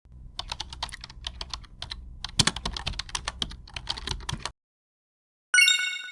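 Computer keyboard typing: a run of rapid, irregular key clicks over a low hum, stopping after about four and a half seconds. Then, near the end, a single bright bell-like ding rings out and fades.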